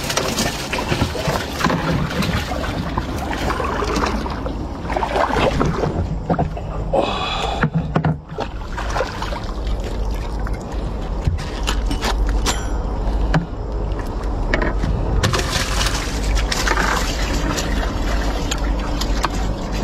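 Water splashing and gurgling around a small aluminium boat, with scrapes and knocks of a metal rake-fork as suckermouth catfish are scooped out of the river. A steady low rumble runs underneath.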